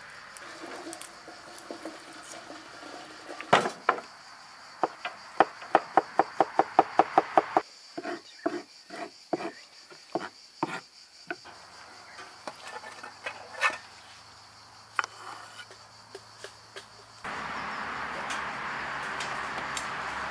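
Knife chopping garlic on a wooden cutting board: a quick, even run of sharp taps at about five a second, then slower, scattered chops.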